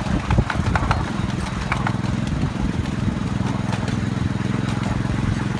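Small engine of a 7¼-inch-gauge miniature railway locomotive running steadily under way, heard from the carriages behind, with a few sharp clicks and rattles from the moving train in the first couple of seconds.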